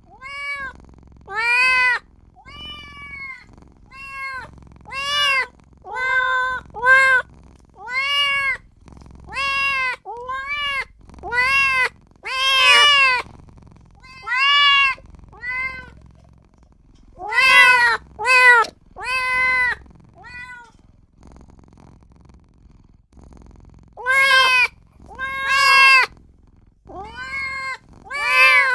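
A very young kitten meowing over and over, high calls that rise and fall, about one a second, with two pauses of a few seconds in the middle. These are the cries of a newborn kitten calling for its mother.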